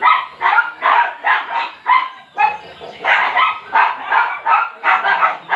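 A dog barking over and over, about two to three short barks a second.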